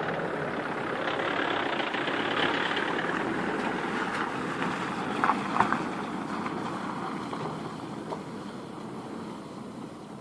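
An MPV drives past on a wet, slushy road. Its engine and tyre noise swell to their loudest a couple of seconds in, then fade as it pulls away. A few sharp knocks come about halfway through.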